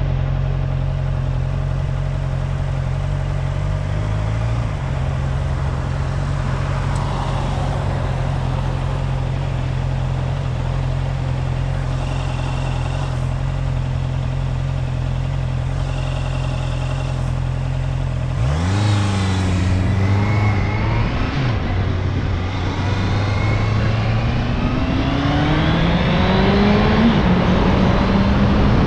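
Honda CBR650F inline-four engine through its stock muffler, idling steadily. About two-thirds of the way in the throttle is blipped once, the revs jumping and falling back. In the last few seconds the revs climb steadily and hold higher.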